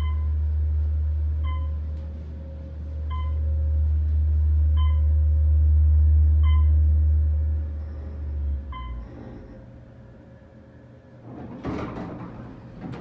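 Otis Series 1 traction elevator car in motion, a steady low rumble in the cab, with a short ding as each floor is passed, six of them about every second and a half. The rumble stops as the car arrives, and the doors slide open near the end.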